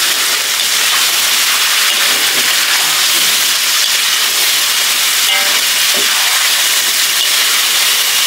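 Beef and soy sauce sizzling in a hot steel wok, a steady hiss, while a metal spatula stirs through it with a few faint scrapes.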